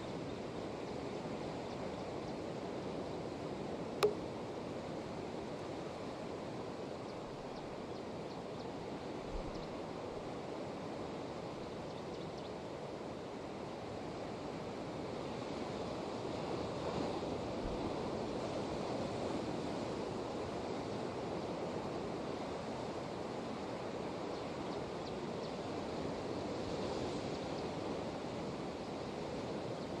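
Surf breaking on the rocky shore below, heard at a distance as a steady wash of noise that swells a little in the second half. A single sharp click about four seconds in.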